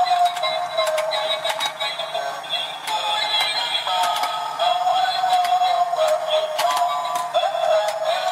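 Tinny electronic melody playing from a battery-powered toy fishing game, with scattered sharp plastic clicks over it.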